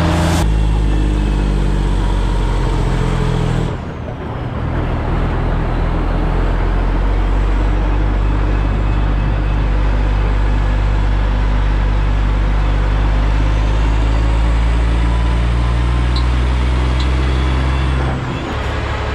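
Diesel truck engine pulling steadily on the road. About four seconds in the engine note dips briefly and then picks back up, as with a gear change, and near the end the note drops again.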